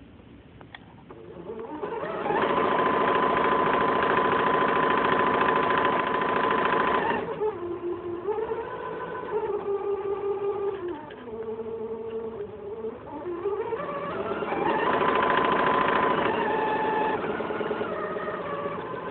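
Janome DC2010 sewing machine running. It speeds up to a fast, steady stitching hum about two seconds in. Around the middle it slows, its motor pitch wavering up and down, then speeds up again for a few seconds near the end.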